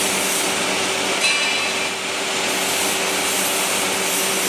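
Inline pail filling and lidding machine running: a steady mechanical noise with a low hum, and a short clatter about a second in.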